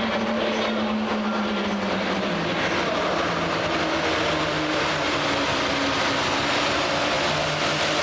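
Hot farm class pulling tractor's turbocharged diesel engine running hard at high revs under full load while dragging a weight-transfer sled. The pitch drops slightly about two seconds in, then holds steady.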